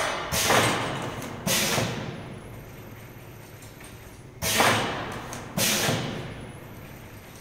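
Stainless-steel tube labelling machine cycling on a test run: sudden mechanical bursts that die away over about a second each. They come in pairs about a second apart, and the pairs repeat every four seconds or so.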